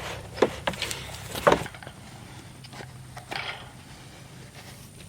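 A few sharp knocks and clatters in the first second and a half, then quieter scattered clicks and scuffling.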